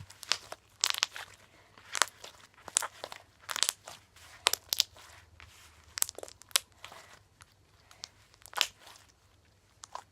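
Slime being squished and stretched in the hands, giving irregular sharp clicks and pops, more than a dozen of them.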